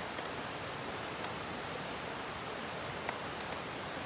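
A few faint crackles from kindling catching fire in a small steel fire box, over a steady rushing hiss.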